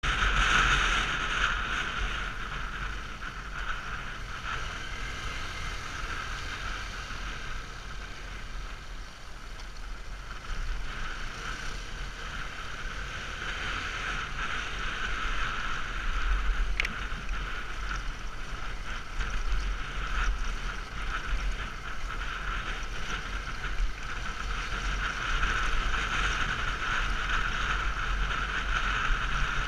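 Motorcycle riding on a dirt road, heard through the rider's own camera: steady wind rumble on the microphone over the muffled engine and road noise, with one sharp tick about seventeen seconds in.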